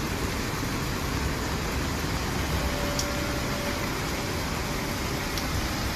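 Steady rushing noise of fast-flowing muddy floodwater running through a street.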